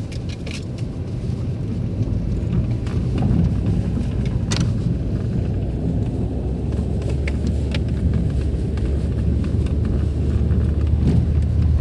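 Car driving slowly on a dirt track, heard from inside the cabin: a steady low engine and tyre rumble with a few light clicks, getting slightly louder over the stretch.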